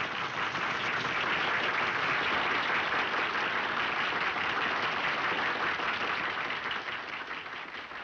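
Audience applause, a dense steady clapping that eases off near the end.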